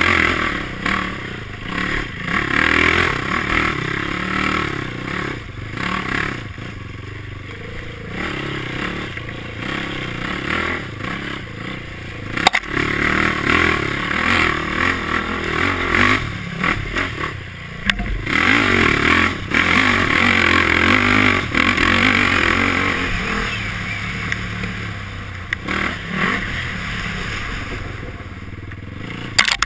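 Honda quad's engine revving up and falling back again and again as it is ridden hard along a rough, rutted trail, with clattering from the machine and a few sharp knocks, the loudest about twelve seconds in.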